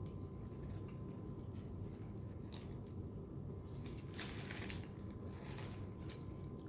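Faint chewing and crunching of a crispy fried chicken sandwich, with a louder crunch about four seconds in, over a low steady hum.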